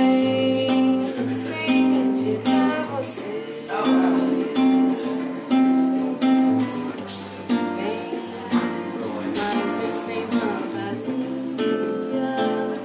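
Nylon-string classical guitar strummed in chords, with a woman singing softly along.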